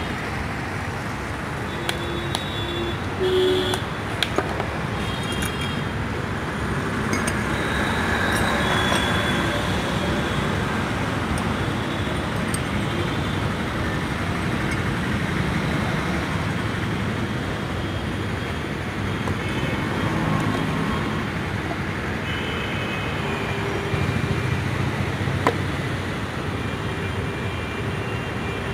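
Steady city road traffic from passing cars, scooters and buses, with a few sharp clinks of glassware in the first few seconds and one more near the end.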